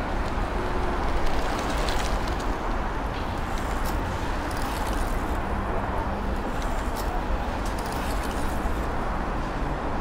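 Steady city street ambience: the hum of road traffic, with scattered light ticks.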